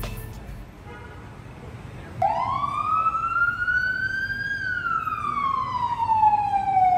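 A siren wailing through one slow cycle: starting about two seconds in, its tone rises for about two seconds, then falls more slowly until it cuts off abruptly.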